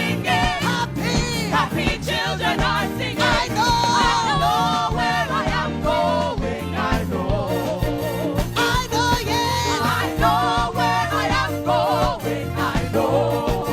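Gospel music: singing with vibrato over instrumental backing with a steady beat.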